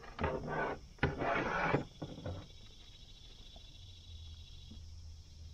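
Two short bursts of rubbing and scraping in the first two seconds as fishing gear is handled and stowed on a plastic fishing kayak, followed by quieter handling.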